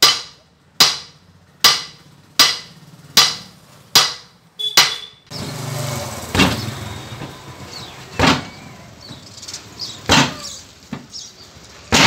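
Hammer blows on the steel rear brake drum of a Mahindra Scorpio, knocking it off the hub: sharp metallic clangs with a short ring, about one every 0.8 s. About five seconds in they give way to slower blows about every two seconds over a steady low hum.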